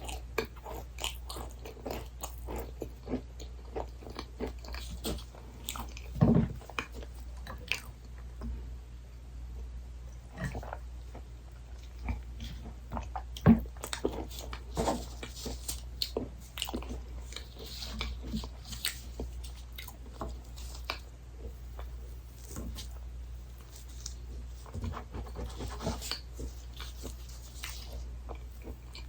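Close-miked chewing and biting of soft desserts such as cake and macarons, with many small mouth clicks. Two louder, sharper sounds stand out, about six and thirteen seconds in, over a steady low hum.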